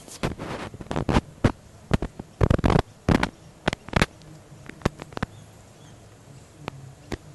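A small terrier and a black-and-white cat play-fighting: a quick run of sharp snaps and short scuffling bursts, thickest in the first four seconds, then only a few scattered snaps.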